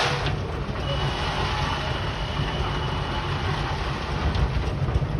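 A single sharp impact right at the start, then the steady low rumble of a pile-driving rig's machinery running, with a faint high whine partway through.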